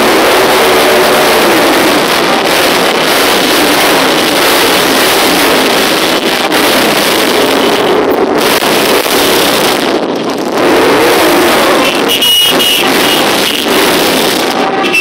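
A line of motorcycles riding slowly past close by, many engines running loud together; about eleven seconds in one engine revs up and back down.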